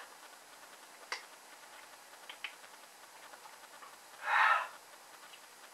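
A few faint clicks and mouth noises, then about four seconds in one short, forceful breath out through the open mouth, a reaction to the vinegar-heavy buffalo sauce just sucked from the packet.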